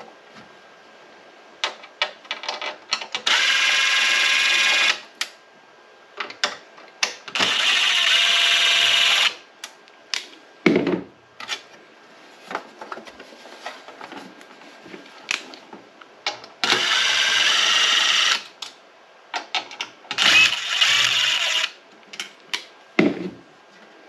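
Cordless impact driver backing out the Phillips screws from a network video recorder's sheet-metal cover: the driver runs in four bursts of about two seconds each, with short clicks and knocks of handling between them.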